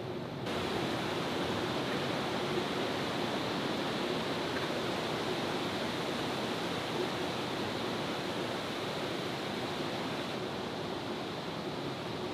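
Steady rushing noise with no distinct calls or events. It gets brighter about half a second in.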